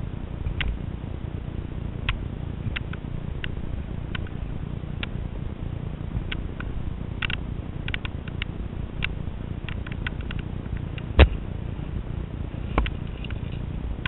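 Low rumbling handling noise from a camera carried close to the body, with scattered light clicks and scrapes from a via ferrata climber's gear and movement on rock, a sharp knock about eleven seconds in and a smaller one near the end.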